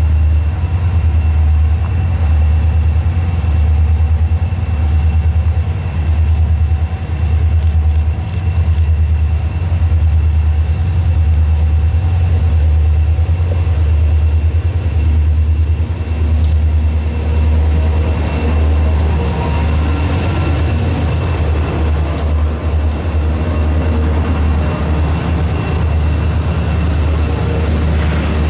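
Freight train led by EMD SD40-2 diesel locomotives approaching slowly and passing close by, with a deep, pulsing diesel rumble. From a little past halfway, wheel and rail clatter grows as the locomotives roll alongside.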